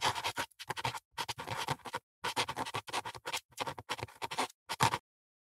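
A pen nib scratching across paper in a quick series of short writing strokes, as script lettering is written out; the strokes stop about five seconds in.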